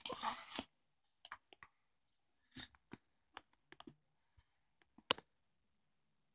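A short rustle, then scattered small clicks and taps from handling an AR-15 rifle, about one a second, the loudest about five seconds in.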